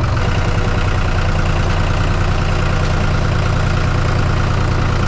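Tractor engine running steadily under load while it carries a heavy log raised on its front loader.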